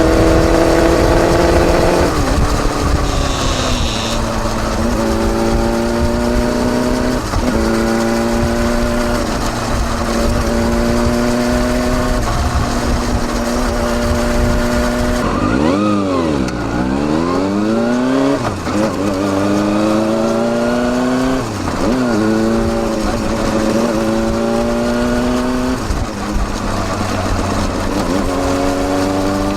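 Kawasaki Balius 250cc inline-four exhaust through a Wr's slip-on muffler with its baffle fitted, heard right at the silencer while riding. The engine note climbs and drops back with each gear change, holds steady for several seconds, then dips sharply around the middle and rises again as it pulls away.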